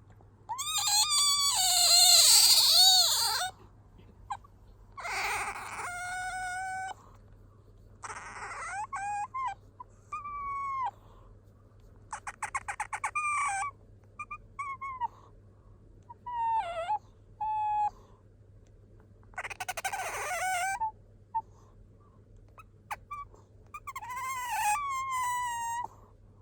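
Asian small-clawed otter squeaking in about seven bouts of high whining calls that glide up and down in pitch, one of them a rapid run of pulsed chirps; the first, about a second in, is the loudest. It is the call this otter makes when sleepy or wanting attention.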